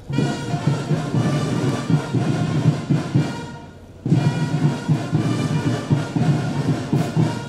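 Band music played in two short phrases, each dying away after about three and a half seconds, the second starting about four seconds in.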